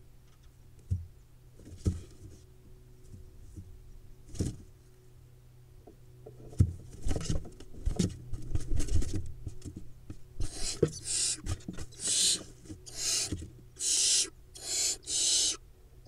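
Barn owl nestlings hissing: a run of rasping, hiss-like calls, about one a second, starting about ten seconds in. Before that, scuffling and thumps as the chicks move and pounce on the straw nest litter.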